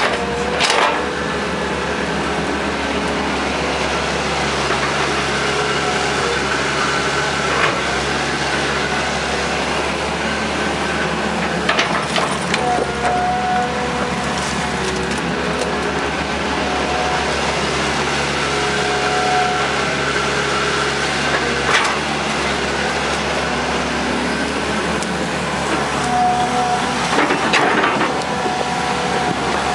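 Hitachi EX120 hydraulic excavator's diesel engine running steadily under load while it digs mud, with short whines from the hydraulics as the boom and bucket move. Occasional knocks from the bucket and linkage.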